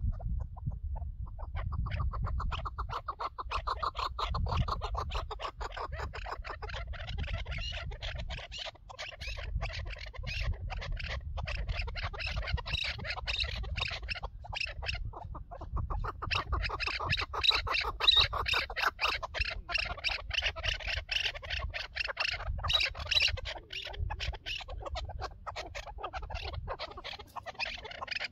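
Chukar partridge calling: long bouts of rapid, repeated chuck notes that start about a second in, ease off briefly twice and are loudest in the second half. A low rumble runs underneath.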